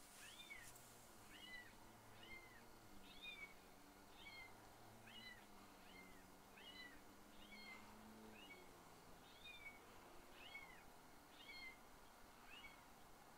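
Electronic predator call looping a short, high two-note call, faint and very evenly repeated a little more than once a second.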